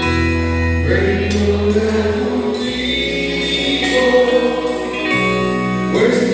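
Live Christian praise music: a band playing with sung vocals, bass notes changing every second or two and occasional sharp cymbal-like strokes.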